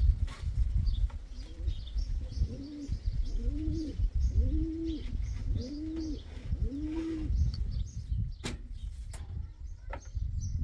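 Domestic pigeon cooing: five rising-and-falling coos, about one a second, over a steady low rumble.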